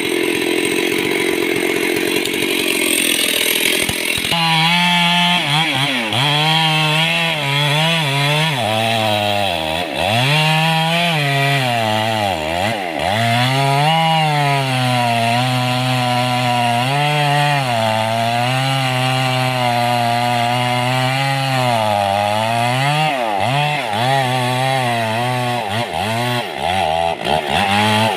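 Stihl chainsaw cutting into a mahogany trunk. The engine runs at high revs, its pitch sagging and recovering as the chain bites, with brief drops in revs about halfway through and again near the end.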